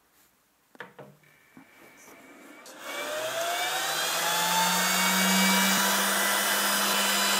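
Cooling fan of an Opt Lasers PLH3D-XT8 diode laser head spinning up as the laser is armed. There are a couple of faint clicks about a second in, then from about three seconds a whir that rises in pitch and grows louder before settling into a steady run.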